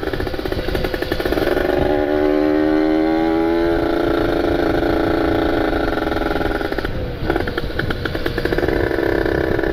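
Kawasaki Ninja RR's ported two-stroke engine running on the road while being broken in. Its pitch climbs briefly about two seconds in, then holds steady, with a short break about seven seconds in.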